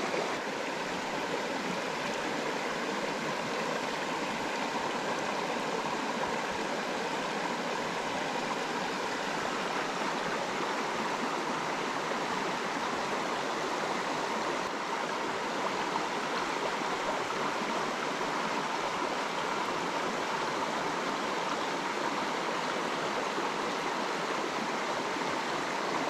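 Shallow mountain creek running steadily over its rocky bed, an even, unbroken rush of water.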